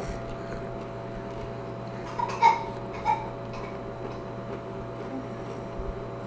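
Steady low hum of a quiet room, broken twice by a brief pitched vocal sound, a little over two and about three seconds in.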